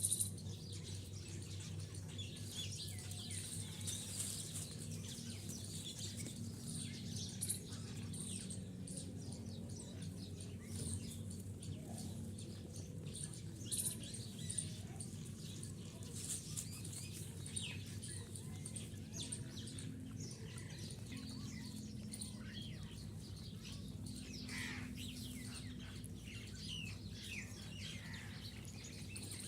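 Many small birds chirping and twittering throughout, over a steady low hum.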